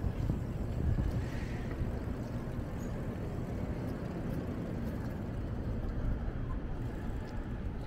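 Steady low rumble of wind and road noise from a moving bicycle, with city street traffic around it.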